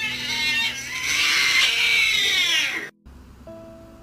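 A cat's long, drawn-out meow that falls in pitch near the end and cuts off suddenly, over light background music.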